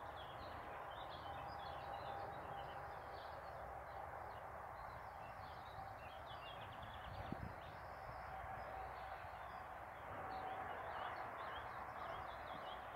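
Steady hum of distant road traffic on a ring road: continuous tyre and engine noise with no single vehicle standing out. Small birds chirp continually over it.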